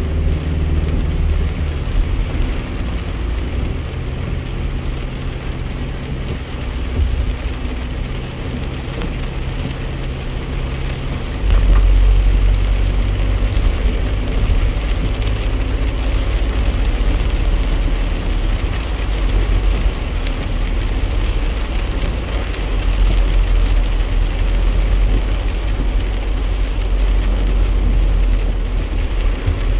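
Truck driving on a wet road in the rain, heard from inside the cab: a steady low engine and road drone with the hiss of rain and tyres on wet pavement. The low rumble turns louder about a dozen seconds in.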